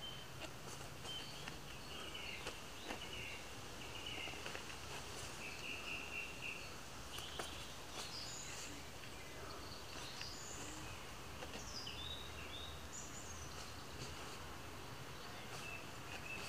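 Small birds chirping and singing in short, gliding phrases on and off, over a faint steady low hum, with a few soft clicks.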